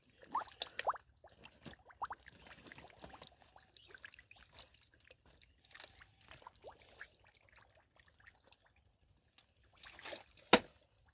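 Water trickling and sloshing with irregular small splashes and drips, busiest in the first few seconds. A single sharp knock about ten and a half seconds in is the loudest sound.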